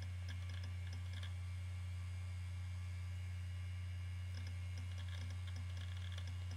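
Iomega Jaz drive spinning with a steady low hum, with a few faint ticks now and then.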